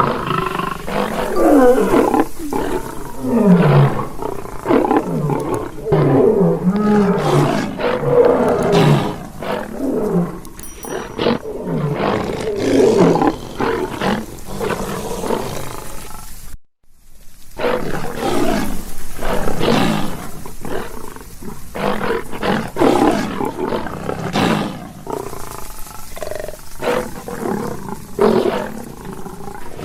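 Lion roaring over and over in loud, pitched calls that slide up and down, with a momentary break about seventeen seconds in.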